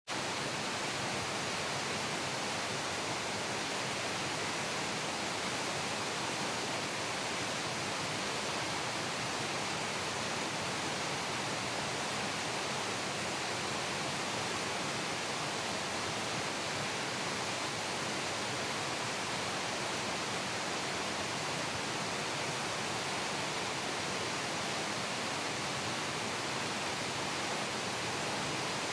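Steady rush of a mountain stream tumbling over a small cascade, an even hiss of white water.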